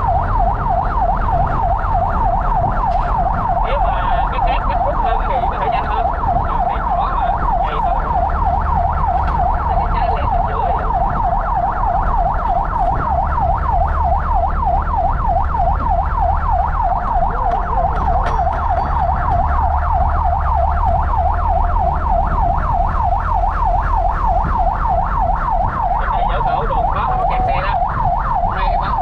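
A fire truck's siren running in a fast, continuous yelp, several rising sweeps a second, heard from inside the truck's cab. The truck's engine rumbles low underneath.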